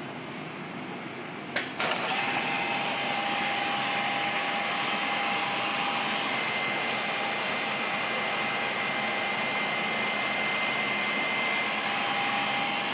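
Deckel FP2NC CNC mill's spindle switching on with a click about a second and a half in, then running at a steady speed: an even motor hum with a steady whine over it.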